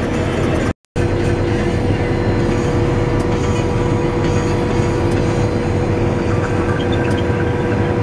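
Claas Lexion combine harvester running at work, a steady machine drone heard from inside the cab. It breaks off for a split second about a second in, then carries on unchanged.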